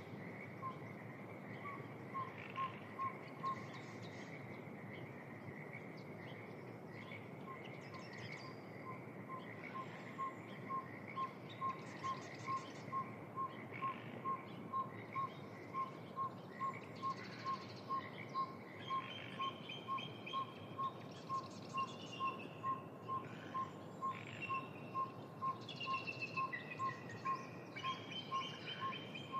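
Evening wetland birdsong over a steady background hiss: a long run of evenly spaced single piping notes, about two a second, with assorted chirps and trills from other birds that grow busier in the second half.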